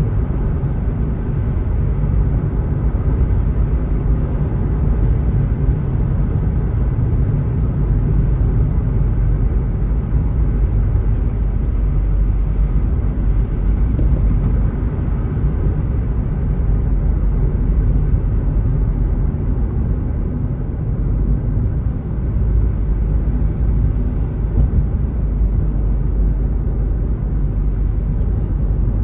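Steady low rumble of a car driving, heard from inside the cabin: tyre and road noise with the engine underneath.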